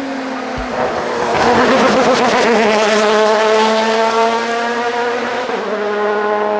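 Open-cockpit sports prototype race car driving past at high revs on a wet road, its engine note held high and fairly steady, loudest about two to four seconds in as it goes by, then easing slightly.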